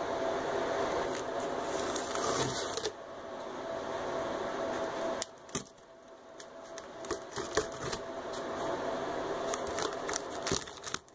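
Cardboard box and packing tape handled as the box is opened: a few seconds of dense rustling, then scattered sharp clicks and crackles.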